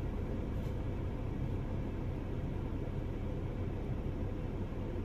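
Steady low rumble with a fainter hiss over it, unbroken and without distinct events.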